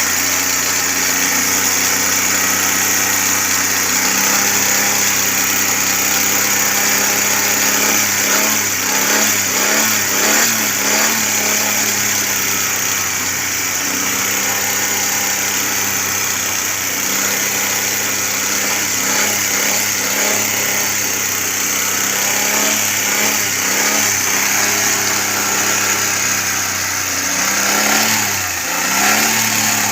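Carburetted Suzuki Cultus three-cylinder engine idling steadily. It is being run to test a newly fitted ignition coil, because the car has been misfiring with RPM fluctuation from a weak coil. The engine speed wavers several times about eight to eleven seconds in, and dips and recovers once near the end.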